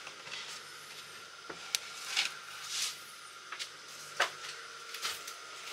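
Plywood overhead cabinet being handled and pressed into place for a test fit: a few quiet, sharp wooden knocks and taps with soft rustling and scraping between them.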